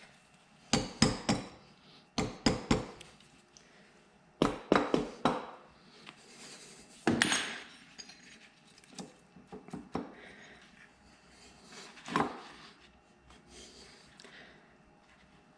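Metal engine parts and hand tools clinking and clattering as they are handled and set down, in several short bursts of sharp knocks with quieter taps between them.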